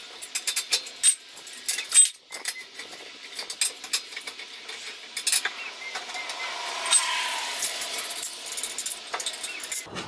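Lug nuts being unscrewed from a steel wheel with a lug wrench: a busy run of irregular metallic clicks, clinks and rattles as the wrench turns and the loosened nuts come off.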